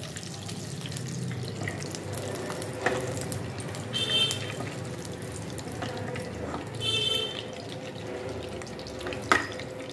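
Desi ghee heating in a frying pan on a gas stove, a steady sizzling hiss as it starts to bubble, with a spoon stirring and clicking against the pan twice, the louder click near the end. Two brief high chirps sound about four and seven seconds in.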